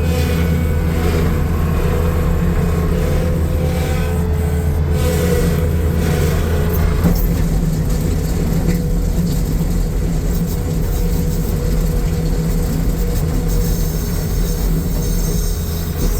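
2015 New Holland L228 skid steer's diesel engine running steadily; its note changes about seven seconds in and it keeps running.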